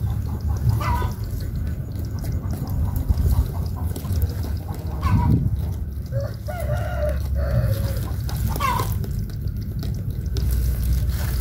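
Chickens clucking, with short calls about three times and a rooster crowing once for nearly two seconds midway, over a steady low rumble.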